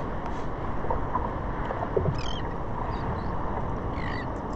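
Water sloshing and splashing around a surfboard on the ocean, with wind on the microphone. A few short, wavering high calls are heard about two seconds in and again about four seconds in.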